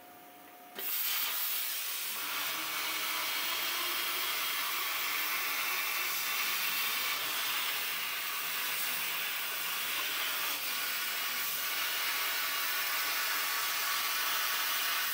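YesWelder CUT-55DS PRO plasma cutter on a CNC table cutting out a forging blank: a steady hiss of the plasma arc and its air. The hiss starts about a second in, after a faint hum.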